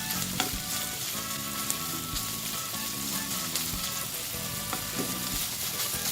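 Minced chicken sautéing in hot cooking oil in a pan, sizzling steadily, with a few sharp clicks as it is stirred.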